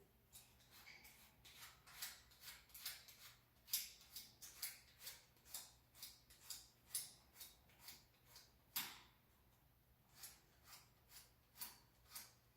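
Short, irregular scraping and clicking strokes of hand work on a bicycle inner tube during a puncture repair, a few a second, with two louder strokes about 4 and 9 seconds in.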